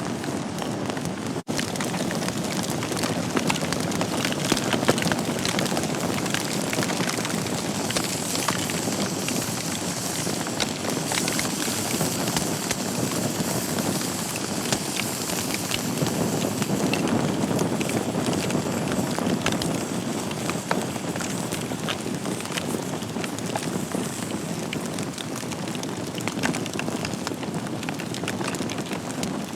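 Wood fire burning in a fireplace: a steady rush of flames with many small sharp crackles and pops from the burning logs. The sound drops out for an instant about a second and a half in.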